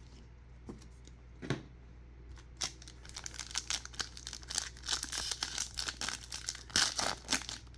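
A sealed baseball card pack's wrapper is pulled open by hand. After a couple of soft handling clicks, the wrapper crinkles and tears from about three seconds in, in a dense crackle that is loudest near the end.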